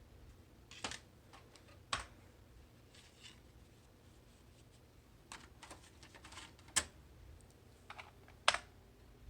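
Computer keyboard keys pressed one at a time: a handful of single sharp clicks spaced irregularly, over a faint low hum.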